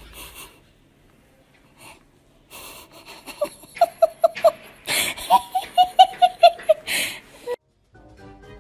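High-pitched, wheezy laughter: two runs of rapid 'ha' bursts, about five a second, starting about two and a half seconds in, with gasping breaths between the runs.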